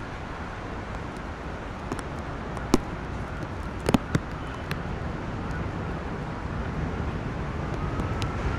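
Steady wash of wet-road traffic noise from the highway below, with a few sharp ticks between about 2 and 4 seconds in. The noise slowly swells toward the end, where a faint rising whine comes in.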